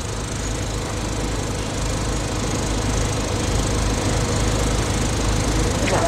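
A motor running steadily: a low hum under an even noise, growing slightly louder.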